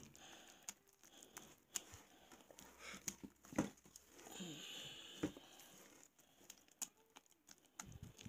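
Faint squelching and scraping of a silicone spatula stirring a thick, wet paste of shredded soap in a glass bowl, with a couple of sharper clicks about three and a half and five seconds in.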